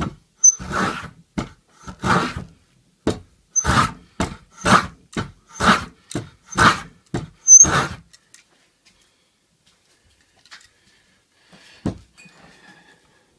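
A hand tool scraping along a wooden edge in about a dozen quick back-and-forth strokes, which stop about two-thirds of the way through. A single knock follows near the end.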